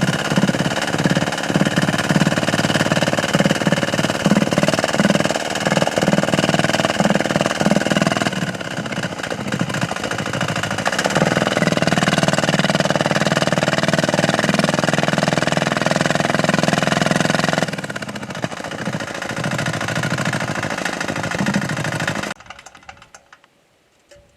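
Small 198 cc single-cylinder diesel engine running with a clattering, knocking note; its pitch and level shift about a third of the way in and again later, and the sound stops abruptly near the end.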